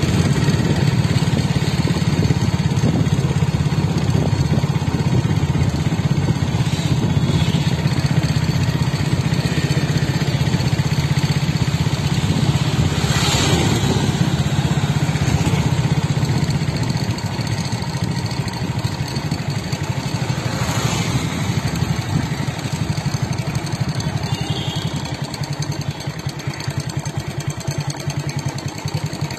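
A vehicle's engine running steadily while riding along the road, a low steady drone with two brief surges of noise. It eases off a little about halfway through.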